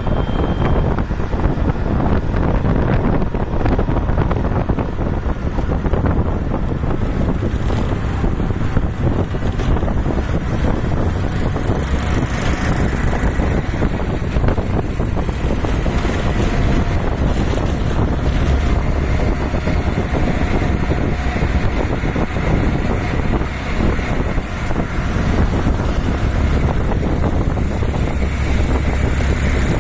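Steady rumble of an auto-rickshaw under way, heard from inside its open passenger cabin: the three-wheeler's engine and road noise in traffic, with wind buffeting the microphone.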